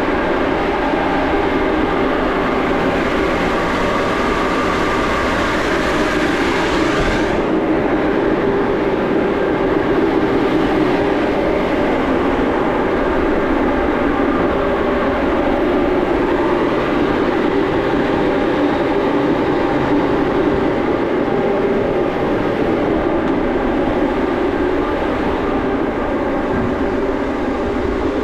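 Boat's engine-room machinery running loudly and steadily, a dense drone with several steady hum tones under it. The high hiss drops off about seven seconds in.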